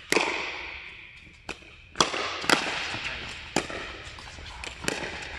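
Pickleball paddles hitting a hard plastic ball in a fast rally: about six sharp pops, irregularly spaced, with a few fainter taps between. Each pop rings on in the echo of a large indoor court hall.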